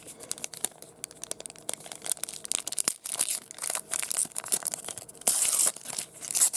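Card pack wrapper being torn open and crinkled by hand, a run of crackling rustles with a louder burst of tearing about five seconds in.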